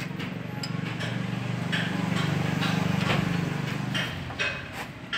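A low engine drone swells and fades over the first four seconds, like a motor vehicle passing. Then come several sharp metallic clinks near the end as a box wrench works the bolts on a truck's axle housing.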